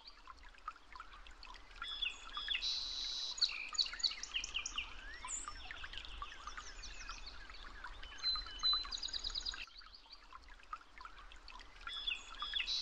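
Birds chirping and singing, many short calls and quick rising and falling whistles overlapping, over a faint low hum.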